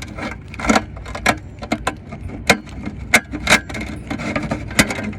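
Irregular sharp clicks and knocks of a dryer vent gooseneck hood being worked on by hand to get its lint screen out, over a steady low rumble.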